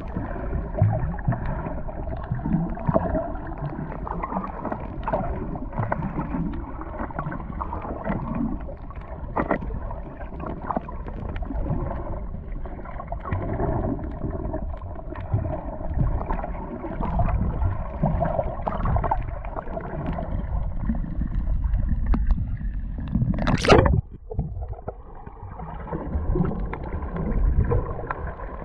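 Muffled, continuous water sound with gurgling and scattered knocks, and one sharp, louder burst about 23 seconds in.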